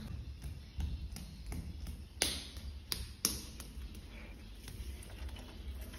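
Scattered light taps and clicks over a low rumble, with two sharper clicks about two and three seconds in.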